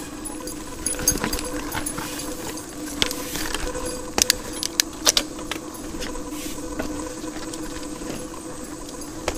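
Mountain bike rolling over a rocky dirt trail: chain and frame rattling and clinking, with a few sharp knocks from rocks and roots between about three and five seconds in, over a steady hum.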